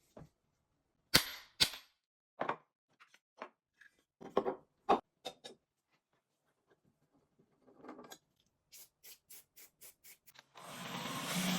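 Sharp knocks and clicks of a hand plane being taken apart and worked on, two loud ones about a second in, then a quick run of even strokes; near the end a steady rushing noise starts.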